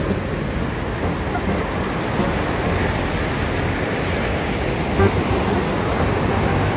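Ocean surf breaking and washing up the beach: a steady rushing noise with a low rumble underneath, and a brief knock about five seconds in.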